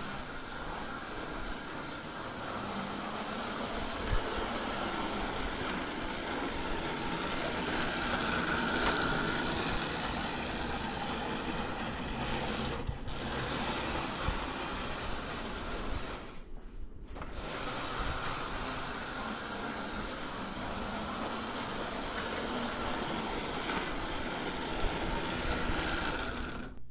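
1939 Marx O-scale toy locomotive running with its train: the steady whir of its small electric motor and gears with the wheels rattling along the track. The sound drops out briefly about 13 seconds in and again for under a second about 16 seconds in.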